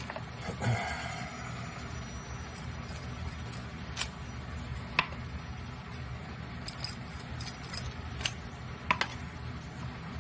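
Scattered light clicks and taps, about five sharp ones, as small wooden wheel clamps on threaded rods are handled and screwed down onto a wooden instrument body, over a steady low hum.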